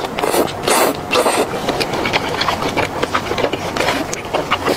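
Close-miked wet eating sounds of spicy stir-fried octopus: sucking, chewing and lip-smacking, heard as a dense run of sticky clicks and short slurps.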